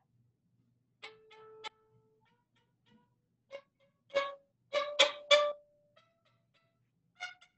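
Violin played with ricochet bowing, using a carbon fiber bow: the bow is dropped onto the string and bounces off in short bursts of quick, separate notes, in groups of two or three with gaps between. The teacher thinks the bow may be starting too high up, and the attempt needs another try. Heard through a Zoom call's audio.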